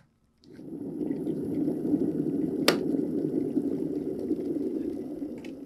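Stainless-steel electric kettle boiling: a dense bubbling rumble that starts about half a second in and fades near the end, with one sharp click about two and a half seconds in.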